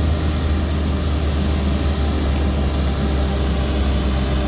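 Combine harvester running steadily while cutting soybeans: a constant deep engine drone with a steady hiss above it.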